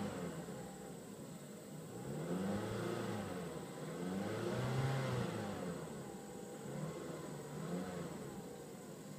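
2006 Mazda 6's 2.3-litre four-cylinder engine revved in Park, heard from inside the cabin: the engine note rises and falls several times, loudest about halfway through.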